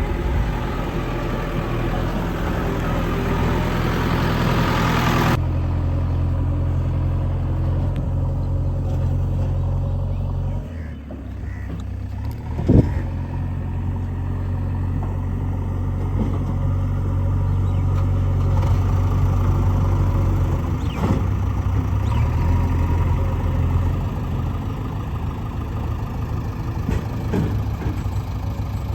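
Backhoe loader's diesel engine running steadily, with an abrupt change in the sound about five seconds in and a single sharp clank near the middle.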